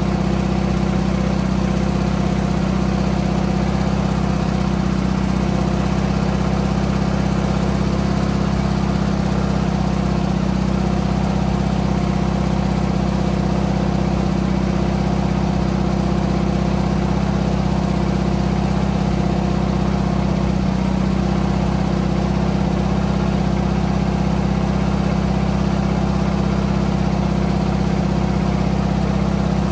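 Craftsman II garden tractor engine idling steadily and evenly, with a low, constant drone.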